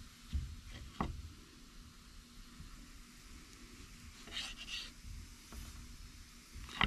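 Faint handling sounds during food prep: two light knocks about a second in, then a brief rustle or scrape a few seconds later, over a low background hum.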